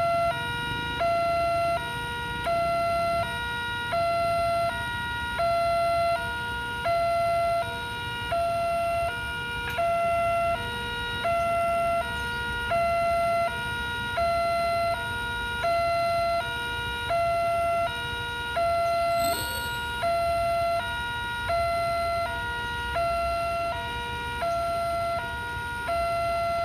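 Railway level-crossing warning siren sounding its electronic two-tone alarm, a higher and a lower tone alternating about every 0.7 s, signalling that trains are approaching. Low rumble of stopped road traffic underneath.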